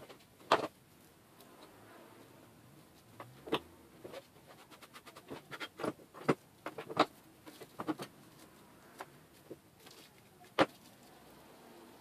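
Side cutters snipping off surplus strands of a cable's shield wire: a string of sharp, irregular clicks, coming closer together in the middle.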